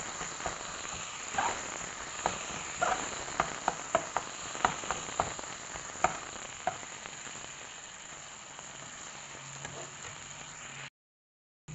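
Onion-and-spice masala sizzling in oil in a kadhai while a metal spatula presses and stirs it. There is a string of sharp scrapes and taps against the pan for the first six or seven seconds, then mostly the steady sizzle. The sound cuts out completely for a moment near the end.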